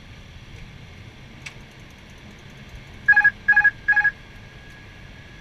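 Three short electronic beeps from an Airbus A320's flight deck alerting system, evenly spaced about half a second apart, about three seconds in, over the steady hum of the cockpit.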